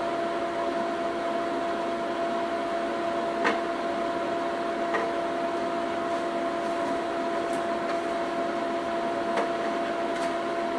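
A steady electrical hum with a fainter tone an octave above it, and a few faint clicks as wire and cable are handled at the board.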